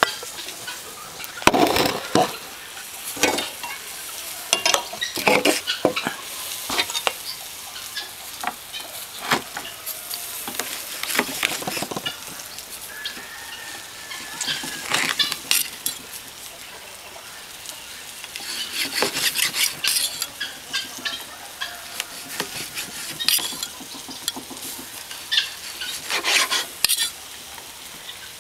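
Knife and cutlery clicking and scraping irregularly while cooked steak is cut, over a steady sizzling hiss from meat on the barbecue.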